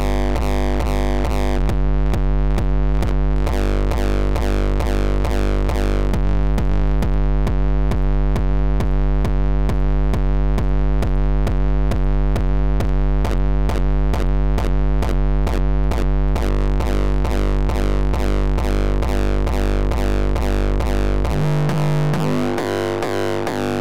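A looped TR-909 kick drum distorted through FabFilter Volcano 3's resonant filters, repeating in a fast, steady train as a heavy, tonal hard-dance kick. Its tone shifts as the filters are tweaked: the top end goes dull about two seconds in and returns past the middle, and near the end the deepest bass thins out as a high-pass filter is raised.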